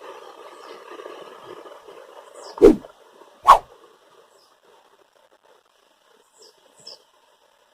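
A dog barks twice, loud and sharp, about a second apart, over a steady background rush that fades out around the barks. Near the end come a couple of faint, short, high bird chirps.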